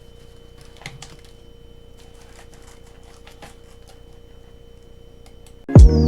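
Faint scattered clicks and handling noise over a steady electrical hum. Loud music starts suddenly near the end.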